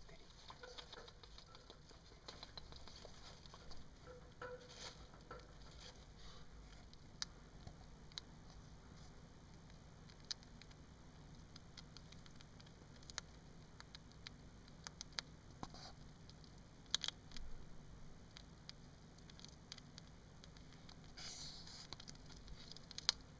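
Syrian hamster nibbling a snack, faint and irregular small clicks and crunches of gnawing, a few louder than the rest, over a faint low hum.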